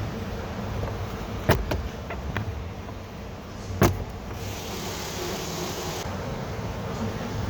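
Plastic dashboard trim panel being pulled free of its tabs: a few sharp clicks as the tabs pop loose, the loudest a little before the middle, followed by about a second and a half of scraping hiss.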